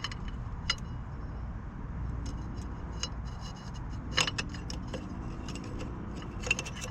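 Steel and fiber clutch plates clinking against the clutch basket as they are slid in one at a time, in alternating order. A few sharp metallic clicks, the loudest about four seconds in, over a low steady hum.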